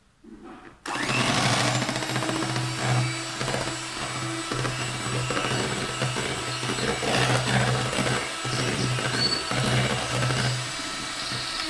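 Electric hand mixer switched on about a second in and running steadily, its whisk beaters whipping cake batter in a plastic bowl.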